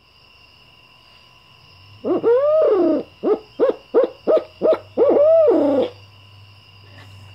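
A walnut Harrison Hooting Stick owl call blown by mouth, imitating a barred owl's 'who-cooks-for-you' hoot. Starting about two seconds in, it gives one long hoot that rises and falls, five short hoots in quick succession, then a long hoot that falls away.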